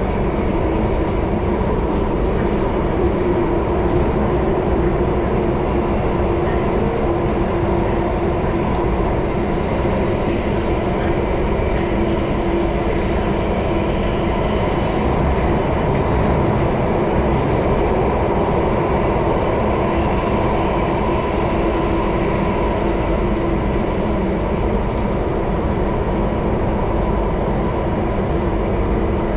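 Inside a Singapore MRT Circle Line train running between stations: a steady rumble of the train in motion with a constant hum and faint light ticks, at an unchanging speed.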